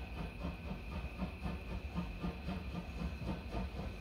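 Steam locomotive C58 363 pulling out of a station, its beat coming about four times a second over a steady high hiss of steam.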